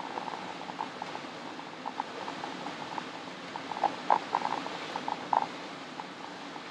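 Steady road noise inside a moving camper van on a wet road, with irregular light taps scattered through it.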